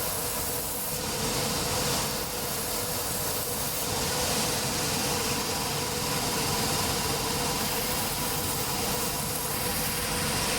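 A cobbler's grinding machine running steadily with a constant motor tone, grinding down the toe of a leather sole and its steel toe tip so the plate fits.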